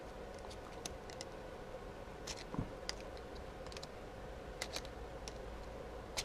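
Light, irregular clicks and taps of small metal parts and tools being handled while ball bearings are worked out of an RC car's wheel carrier. There is a faint steady hum underneath.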